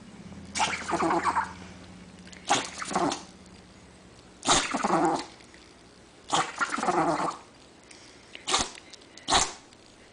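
A dog sneezing repeatedly: about six short bursts a second or two apart, the last two sharp and sudden.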